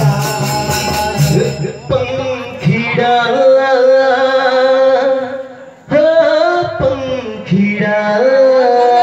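Live Chhattisgarhi jas geet devotional music. Jingling percussion and drumming stop about two seconds in, and singing in long held notes with instrumental backing takes over, dropping out briefly before six seconds in.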